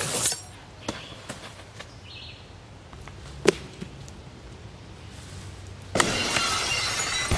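A blade strike sound effect, a short sharp slash, right at the start. Then a quiet stretch with a few faint ticks and one sharp click. About six seconds in, a loud harsh crash of noise begins and carries on.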